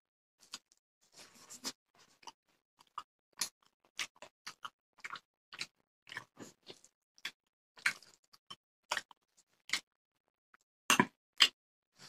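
A person chewing and smacking while eating rice and fish curry by hand: irregular short clicks and smacks, with two louder ones about eleven seconds in.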